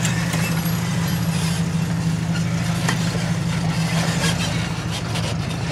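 Jeep Wrangler engine idling steadily, a constant low hum, with a few faint clicks over it.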